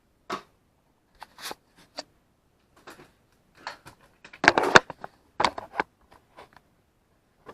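Irregular light clicks and knocks of the plastic parts of a Graupner MX-20 RC transmitter being handled and fitted back together during reassembly, with the loudest clatter about four and a half to five seconds in and another knock at about five and a half seconds.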